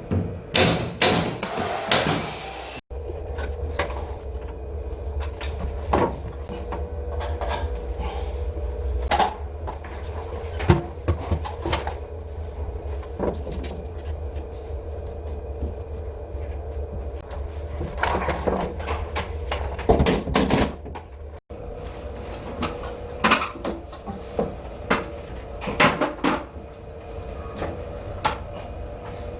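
Interior carpentry work on a ceiling job: repeated sharp clicks and knocks of tools and timber, with a few louder noisy bursts, over a steady low hum.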